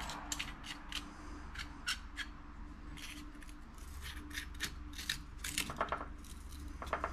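Light metallic clicks, taps and scrapes of a Fitzbrick bricklaying clamp being adjusted by hand, as its screw is put back in and turned tight with a penny.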